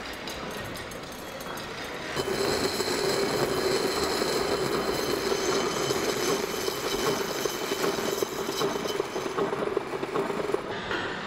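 Many vintage portable record players running with no records on them. The noise of their needles and turntable mechanisms comes through their small built-in speakers as a dense rattling noise, with a steady hum and a faint high whine over it. It gets much louder about two seconds in.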